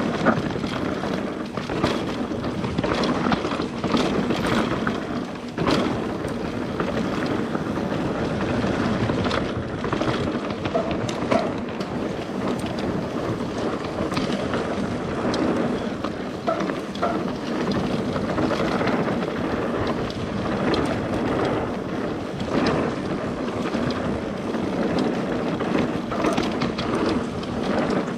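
Nukeproof Mega 275 mountain bike riding fast down a dirt singletrack: continuous tyre and drivetrain rattle with frequent sharp knocks as it hits roots and rocks, and wind on the microphone.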